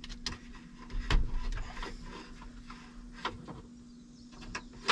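Scattered light clicks and knocks of hands working behind a truck's open dashboard, handling air-brake line fittings and parts, over a faint steady hum.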